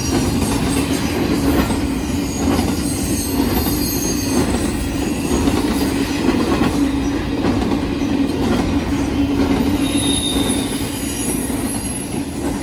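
Double-stack container freight train passing close by at speed: a steady, loud rumble and clatter of wheels on rail, with a few faint, high wheel squeals.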